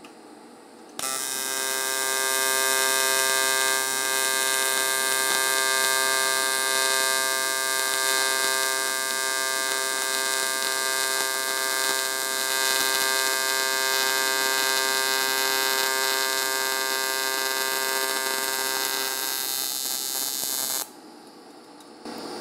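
AC TIG welding arc set to 120 Hz and 73% negative balance, buzzing steadily with an even hum while stainless steel is fused to aluminum with 308L stainless filler. The arc strikes about a second in and is broken off shortly before the end.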